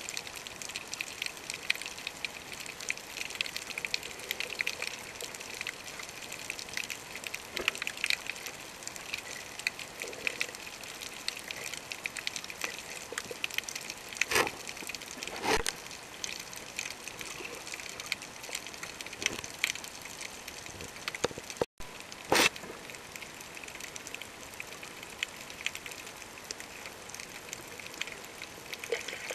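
Underwater reef ambience picked up by a camera underwater: a steady crackling hiss with a few louder knocks about midway.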